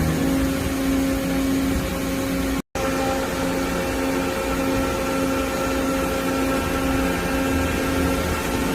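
Doosan DCM-2740F CNC double column machining center running: a steady machine hum with a humming tone and its overtones over a noise bed, the tone coming and going in the later part. The sound cuts out completely for a moment about a third of the way in.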